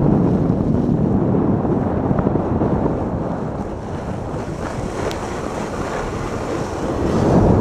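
Sport luge sliding fast down a packed-snow toboggan run: the runners scrape and hiss over the snow, mixed with wind rushing on the microphone. The noise eases a little midway and builds again near the end.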